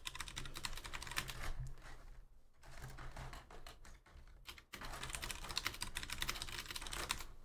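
Rapid typing on a computer keyboard in three quick runs of key clicks, with two short breaks between them.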